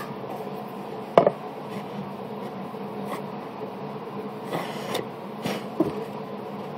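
A wooden box being handled on a router table top: a sharp knock about a second in, then a few lighter knocks and a brief rub, over a steady machine hum.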